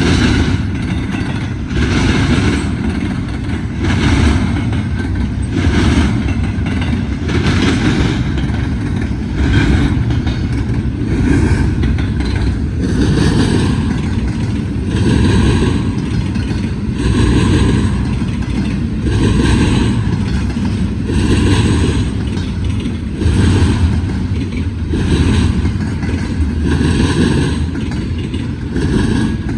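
Freight train wheels pounding across railroad diamonds as the cars pass. A heavy clatter comes about every two seconds as each car's wheels hit the crossing, over a steady rumble of the train rolling by.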